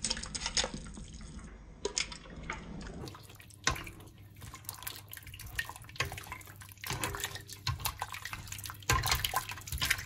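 Chicken wings being parboiled: water splashing and sloshing in a stainless steel pot as the raw wings are lowered in and stirred with a plastic slotted spoon, with irregular short clicks and splashes.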